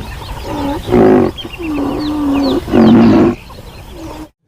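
Recorded rhinoceros sound effect: several deep calls, the loudest near the end, with birds chirping behind them. It cuts off suddenly about four seconds in.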